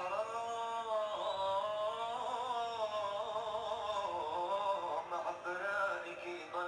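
Male voice singing an Arabic mawwal: long held notes with wavering, ornamented pitch that slides and bends from one note to the next.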